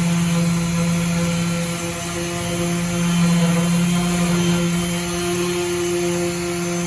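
Makita M9202M orbital sander running steadily under load while sanding, a constant motor hum with a steady grinding hiss, swelling slightly as pressure on the work changes.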